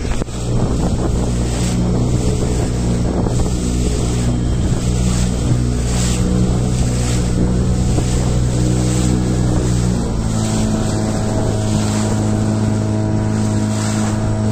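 Small boat's motor running steadily under way, its pitch shifting slightly about ten seconds in, with wind noise on the microphone and water rushing past the hull.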